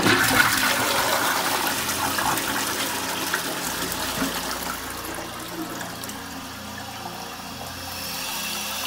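Back-to-wall rimless toilet flushing after its dual-flush button is pressed: a sudden rush of water into the bowl that slowly dies away. Near the end a steadier hiss as the cistern's fill valve begins refilling the tank.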